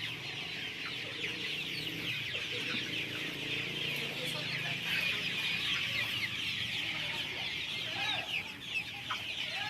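A large brood of chicks peeping all at once, a dense, continuous chorus of short, high, overlapping chirps.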